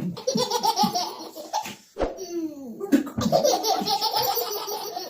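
Twin babies laughing hard in quick repeated bursts, broken about two seconds in by a short falling-pitched noise.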